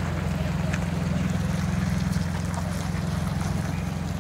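Heavy-haul diesel truck and its multi-axle trailers rolling slowly past under a 390,000 lb bridge-girder load: a steady low engine drone that swells a little about two seconds in, then eases off.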